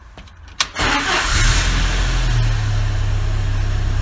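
Jeep YJ Wrangler's four-cylinder engine starting: a click, then the engine catches and briefly revs up before settling into a steady idle.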